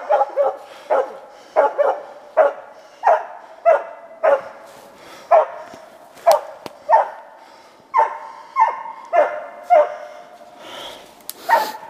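Hunting laika barking in an even, steady series of short sharp barks, about two a second, at the fir where the tracked animal's trail climbs the tree.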